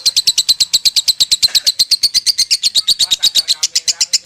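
Lovebird singing its long 'konslet' kekean: an unbroken run of sharp high chirps, about a dozen a second.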